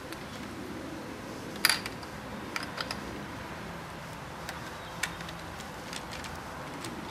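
Small sharp clicks and taps as a screwdriver works the lock screw of a laptop's CPU socket with the processor seated in it: a loud double click about a second and a half in, three quicker clicks near three seconds, one more around five seconds, over a steady background hiss.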